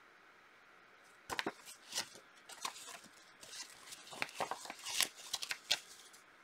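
A folded paper instruction leaflet being handled and folded up, a run of crisp rustles and crackles that starts about a second in and stops near the end.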